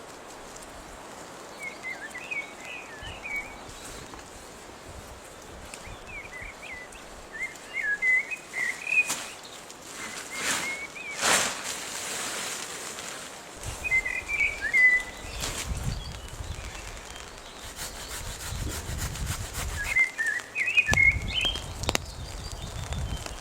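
A small songbird chirping in short twittering phrases, four times, over a steady background hiss. A few sharp knocks land around the middle, and low rumbling noise comes in during the second half.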